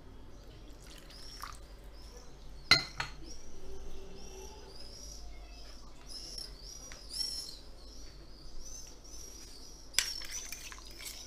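A bird chirping over and over in short high notes. A sharp china clink comes a little under three seconds in, and near the end a spoon clinks several times against the bowl as the mixture is stirred.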